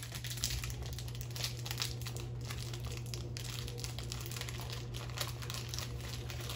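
Plastic candy bag crinkling and tearing as it is pulled open by hand, a dense run of small crackles.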